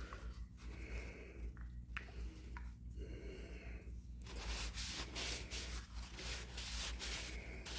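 Faint rubbing as walnut oil is worked by hand into the plane's wooden handle, the rubbing heavier in the second half, over a steady low electrical hum.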